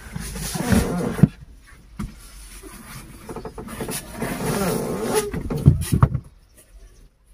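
Elephant's trunk rummaging through bananas on a car seat inside a pickup cab, rustling and bumping against the door and window frame with several sharp knocks; it stops about six seconds in.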